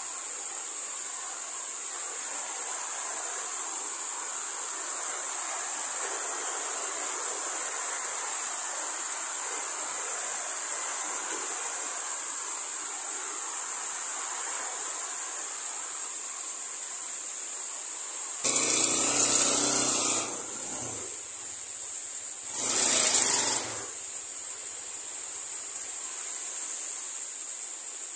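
Rain falling and rainwater pouring off a roof into a water-filled bucket, under a steady high chorus of crickets or other insects. Two louder, rougher bursts of noise, each one to two seconds long, break in about two-thirds of the way through.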